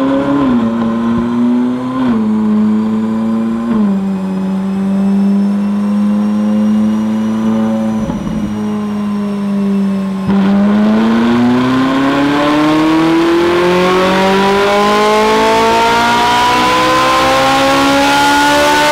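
Ferrari 458 Italia's 4.5-litre V8 with an aftermarket exhaust running on a chassis dyno. It holds a steady, low engine note with a few small blips for about the first ten seconds. Then it makes a long pull, its pitch climbing steadily until it drops off at the very end.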